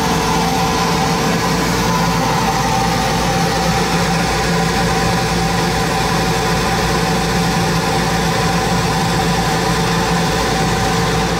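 Laguna CO2 laser cutter running while its head cuts clear acrylic sheet: a steady whir with several held tones, without a break.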